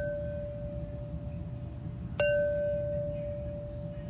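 Stoneware mixing crock tapped in a ding test: a clear, bell-like ring carries on from a tap just before, then a second tap about two seconds in rings out long and steady. The long, clean ring is the sign of a crock with no cracks.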